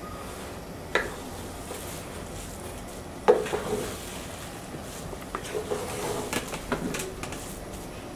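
A spoon knocking and scraping in a cooking pot as rice and beef tehari are stirred together. A few separate knocks come through, the loudest about three seconds in, followed by a run of lighter clicks.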